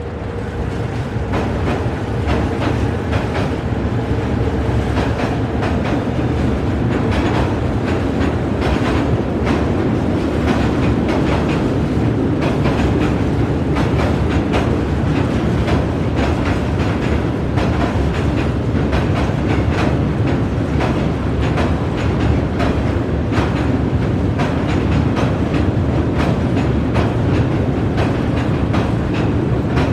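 Large freight train rolling slowly across a steel bridge, heard from underneath. A heavy steady rumble swells over the first couple of seconds, with frequent sharp clicks and clanks from the wheels on the rails.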